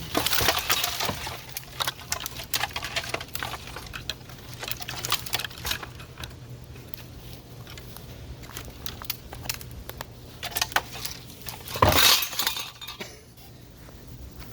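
A ceiling fan being smashed: repeated clinking, rattling and breaking impacts of metal and glass-like parts, with one loud crash about twelve seconds in as the fan comes down. A steady low hum runs underneath.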